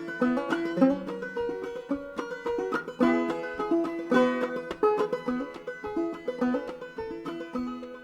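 Five-string banjo (Harley Benton BJ-55Pro) played clawhammer style, tuned to double C (GCGCD) with a capo at the fourth fret: a quick, even run of plucked notes ringing over one another.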